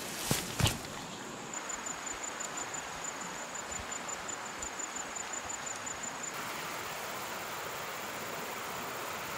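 Footsteps and rustling through grass, with a couple of sharp knocks in the first second. Soft rhythmic footfalls follow under a high, steady insect trill. From about six seconds in, an even hiss takes over.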